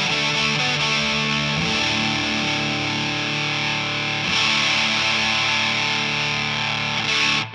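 Electric guitar played through a Big Muff-style fuzz pedal into a Two-Rock amp: thick, sustained fuzzed chords that turn brighter about four seconds in, demonstrating the regular Big Muff's tone shaping. The playing cuts off suddenly just before the end.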